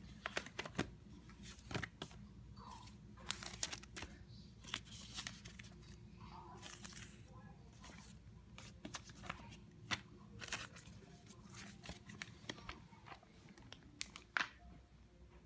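Household items being picked up and handled: scattered clicks and knocks with crinkly rustling, as of paper or plastic, over a faint steady hum.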